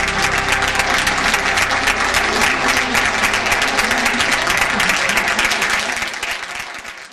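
Audience applauding, with music faintly underneath; the applause fades out near the end.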